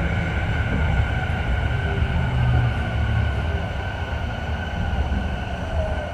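Running sound inside a Tokyu 3000-series electric motor car (DeHa 3509) under way: a steady rumble of wheels on the rails with a thin, steady high whine.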